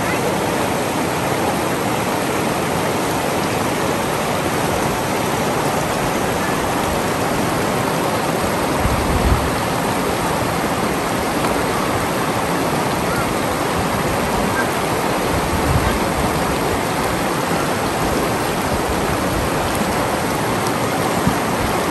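Shallow river water rushing steadily over rocks and boulders in rapids. Two brief low thumps, about nine and fifteen seconds in.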